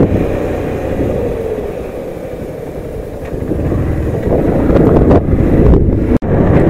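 Motorcycle on the move, its engine mixed with wind rushing over the microphone. It eases off for a couple of seconds in the middle, then builds again, and cuts out for an instant about six seconds in.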